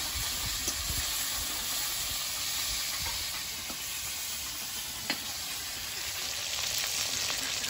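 Pieces of tengra catfish frying in hot oil in a kadai, a steady sizzle, with a couple of light clicks as the spatula touches the pan.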